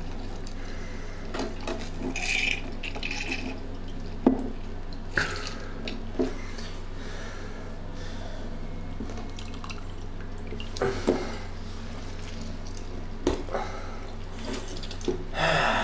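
Orange being squeezed, juice dripping and trickling into a container, with scattered light knocks and a steady low hum underneath.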